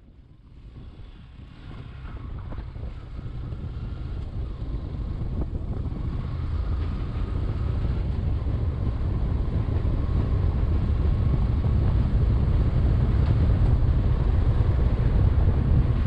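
Wind buffeting the microphone over the low rumble of a Yamaha 150 cc motorcycle riding onto a steel-decked suspension bridge. The noise starts quiet and builds over the first several seconds.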